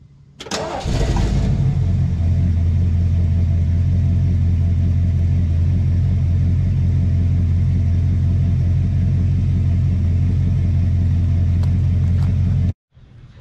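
Truck engine catching about half a second in with a brief rev, then idling with a steady low rumble; the sound cuts off suddenly near the end.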